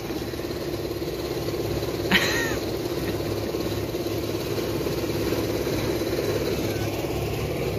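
A steady mechanical drone with a fast, fine flutter and a constant hum, unchanging throughout, with a brief voice-like sound about two seconds in.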